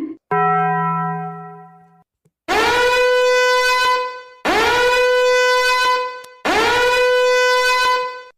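A horn-like tone: one lower note that fades, then three long loud blasts about two seconds apart, each sliding up in pitch as it starts.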